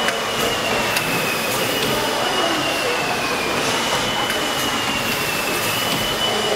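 Stationary steam engines running in a mill engine hall: a steady clattering hiss of machinery with a high squealing whine that slowly sinks in pitch and jumps back up every two seconds or so, and a few light clicks.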